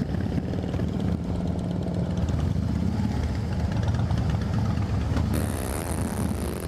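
Harley-Davidson V-twin motorcycle engines idling and running at walking pace, a steady low rumble. A high hiss joins in about five seconds in.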